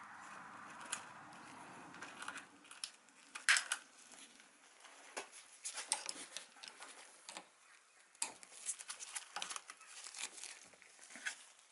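Handling noises from working on the hedge trimmer: scattered clicks, taps and rustling, with one sharper knock about three and a half seconds in. A faint steady hum fades out about two seconds in.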